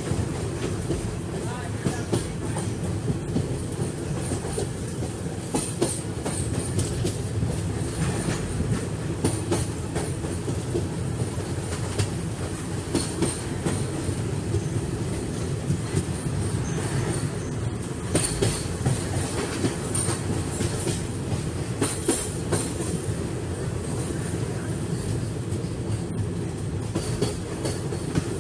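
Express passenger train running steadily, its wheels rumbling with a continual clickety-clack of clicks over the rail joints, heard from inside a coach at the window.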